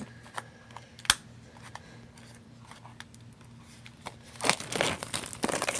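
Fingers picking at the cellophane shrink-wrap on a sealed trading-card hobby box: one sharp click about a second in, then the plastic crinkling and tearing open for the last second and a half.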